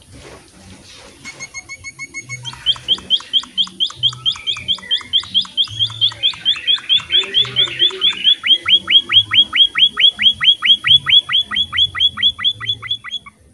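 A small finch of the emprit/munia kind gives a long, fast series of sharp, falling chirps. The series starts faint, grows louder from about two seconds in, settles at about six chirps a second, and stops just before the end.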